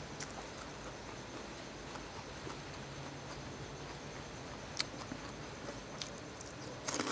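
Faint hand-eating sounds: fingers picking through a plate of papaya salad with rice noodles, with a few soft clicks, then a cluster of crisp clicks near the end as fried pork crackling is bitten, over a steady low hiss.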